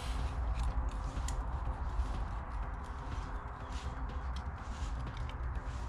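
Rustling, scraping and small knocks of leaves being cleared just outside the shed, over a low rumble, with scattered clicks throughout.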